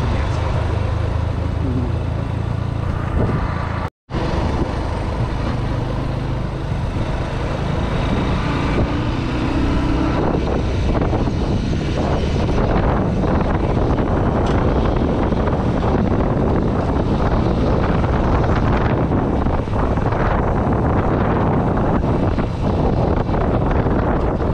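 Motorcycle riding on a road: the engine running steadily under a thick rush of wind and road noise, cut by a split-second dropout about four seconds in.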